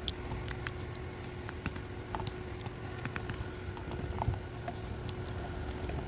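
Scattered, irregular small clicks and taps of a HART 3/8" flex head ratchet's head being taken apart by hand, over a steady background hum.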